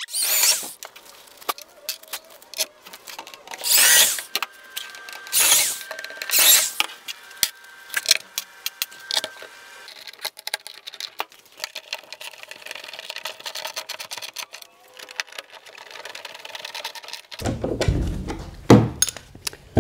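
Ryobi drill boring quarter-inch holes through a plastic sled into its struts in several short bursts, followed by clicks and rattles of bolts being fitted and tightened with a screwdriver.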